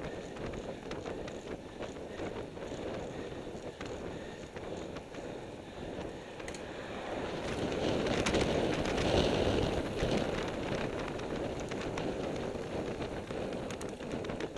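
Wind rushing over a bike-mounted camera's microphone, mixed with the tyre and drivetrain noise of road bikes riding at speed on tarmac. It swells louder about halfway through, with scattered small clicks and rattles.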